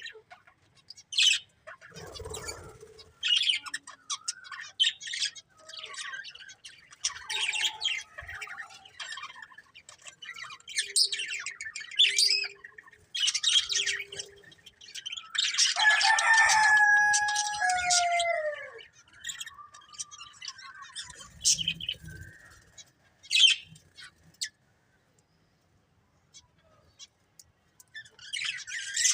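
Budgerigars chirping in quick short bursts, with a louder, longer call of falling whistles about halfway through. The chirping then thins out and stops for a few seconds before starting again near the end.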